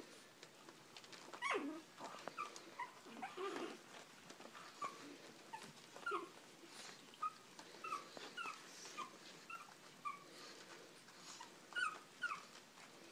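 Three-week-old pug puppies whimpering: a string of short, high squeaks, many falling in pitch, the loudest about one and a half seconds in and again near the end.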